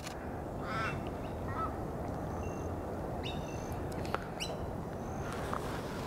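Several short bird calls over a steady low background rumble: brief squawks and chirps come and go every second or so. A single sharp click sounds about four seconds in.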